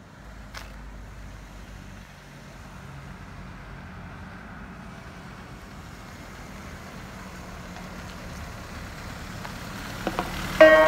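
Ice cream van's engine running as it drives closer, a low steady rumble that slowly grows louder. Near the end its chime tune starts up again.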